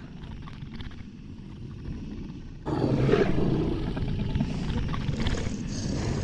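Monster sound effect: a low rumble, then a sudden louder, harsh creature cry about two and a half seconds in that carries on.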